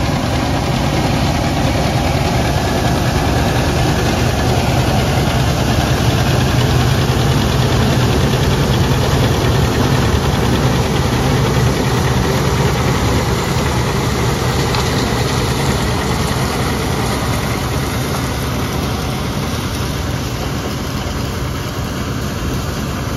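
John Deere tractor with a mounted 237 corn picker running steadily while picking corn, its engine drone and the picker's machinery sounding together; the onlooker takes the tractor for a two-cylinder model. The sound eases slightly toward the end.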